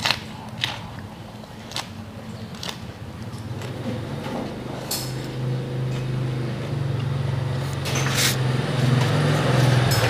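Crunchy chewing of a fresh lettuce wrap, a few sharp crunches in the first three seconds. From about four seconds in a motor vehicle engine hum builds and becomes the loudest sound.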